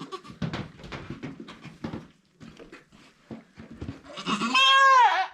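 A goat bleats once, loudly, about four seconds in, during kidding, the call falling in pitch at its end. Before it there is a run of short, soft rustles and clicks.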